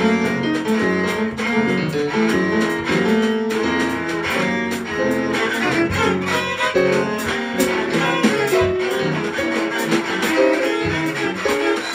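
Live improvised music: a Korean long zither plucked in quick, dense runs of notes over a drum kit with frequent drum and cymbal hits.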